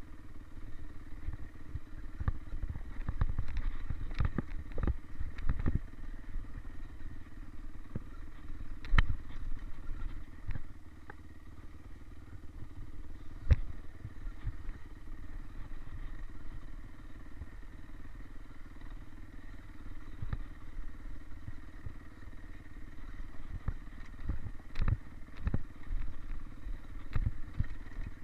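Dirt bike engine running at a steady low speed on a downhill trail, with frequent sharp knocks and rattles from the bike jolting over rough ground. The knocks come in several louder clusters.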